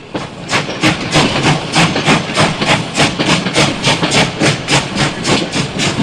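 Steam locomotive chuffing in a steady rhythm of about three beats a second, each beat a hissing puff of exhaust steam.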